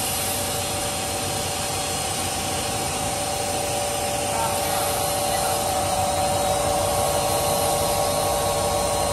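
Plastic extrusion line machinery running: a steady hum and whine of motors and the hopper dryer's blower, with a few held tones over an even noise. It grows slightly louder about halfway through.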